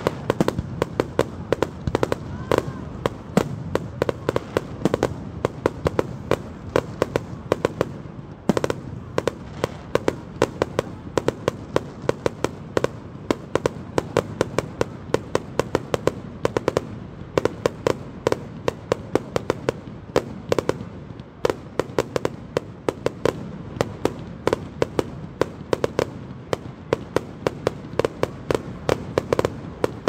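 Fireworks display: a rapid, unbroken barrage of bangs and crackles from bursting aerial shells, several reports a second over a steady low rumble.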